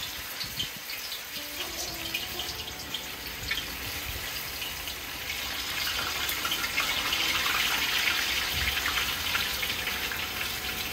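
Pieces of dough frying in a wide pot of hot oil: a crackling sizzle that grows louder from about halfway through as more pieces go in.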